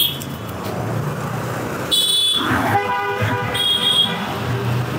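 Street traffic: vehicle horns honk several times from about two seconds in, over a low, steady traffic rumble.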